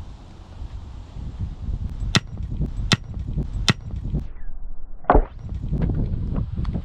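Wind buffeting the microphone, with three sharp knocks about three-quarters of a second apart and a heavier thud a couple of seconds later.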